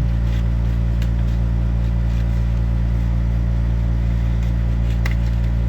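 Steady low machine hum made of a stack of even tones, like a motor running without change, with one light click about five seconds in.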